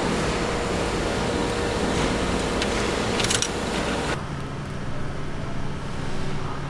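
Steady industrial machine noise with a faint held tone, and a brief light metallic rattle about three seconds in. After an abrupt cut at about four seconds it drops to a quieter, steady low hum.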